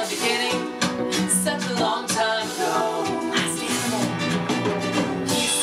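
A man singing a song over instrumental accompaniment that includes guitar.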